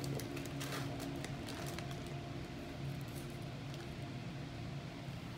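A few faint light clicks and clinks of beads and fine chain being handled while a tangled strand is picked apart, mostly in the first two seconds, over a steady low hum.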